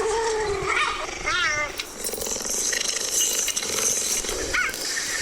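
Big cat calling: a series of short, high-pitched wavering chirps and mews, with a warbling trill about a second in and two quick rising chirps near the end.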